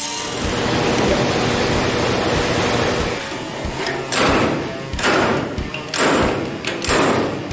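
Air-powered right-angle die grinder grinding spot welds out of old steel body panels: about three seconds of steady grinding, then about four separate grinding passes roughly a second apart.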